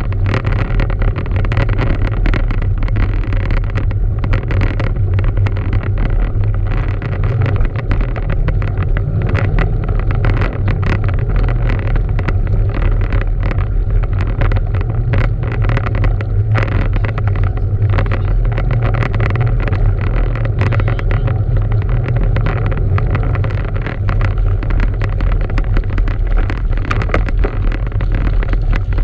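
Wind buffeting the microphone of a mountain biker's action camera while riding on a paved road: a loud, steady rush heavy in the bass, with tyre noise and many short clicks and rattles from the bike.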